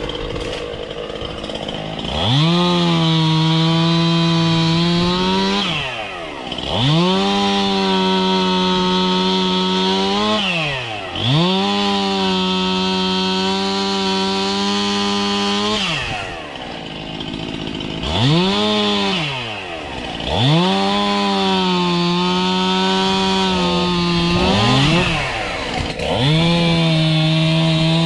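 Two-stroke chainsaw revved to full throttle again and again, each burst held for a few seconds before dropping back to idle, about six times.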